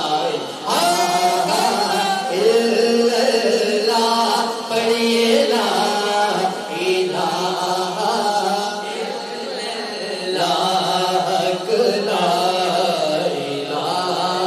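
A man chanting a devotional Islamic poem (kalam) in a solo sung voice. It goes in long, wavering phrases with short breaks for breath between them.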